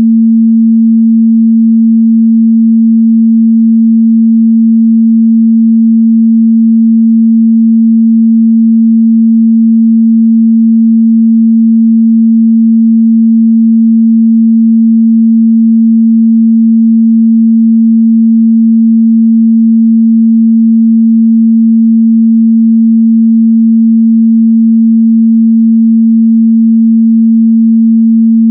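A steady, loud 226 Hz sine-wave test tone: a single pure mid-bass hum held at constant pitch and level, with no other sound.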